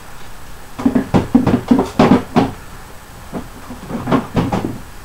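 Kitchenware being handled: a quick run of knocks and clunks about a second in, then a few more near the end.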